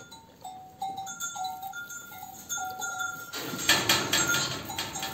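Background music with a light tune of short repeated notes. About three and a half seconds in, a loud, harsh sheep bleat lasting over a second sounds over it.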